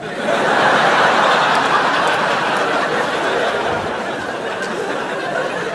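Comedy club audience laughing after a punchline, loudest at the start and slowly dying down.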